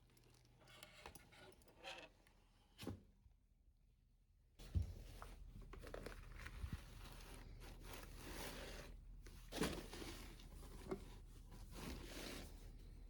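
Packaging being unwrapped by hand: light rustles and a few knocks, a short quiet pause, then a thump about five seconds in and continuous rustling of wrapping with louder handling noises.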